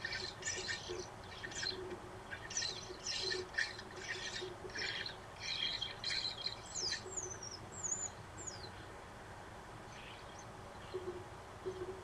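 European starlings calling: a run of harsh, rasping chatter for the first several seconds, then a few thin whistled glides, with fainter calls near the end.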